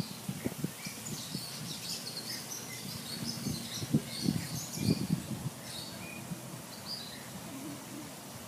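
Small birds chirping and calling in many short high notes, over irregular low thumps and rumbles.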